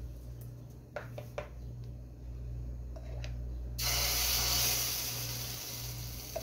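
A few light utensil clicks, then about four seconds in a sudden loud sizzle as pancake batter is ladled into a hot oiled wok, the sizzle carrying on steadily.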